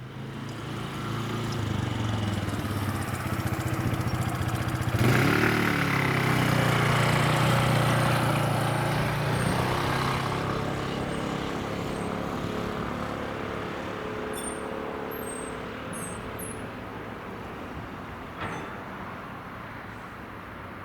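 A road vehicle drives past over the crossing: its engine grows louder over the first few seconds, passes close about five seconds in with a drop in pitch, then fades away.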